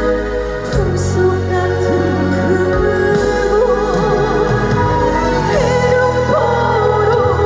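A woman singing a trot song live with a wide vibrato over a backing track of keyboard, organ-like chords and bass.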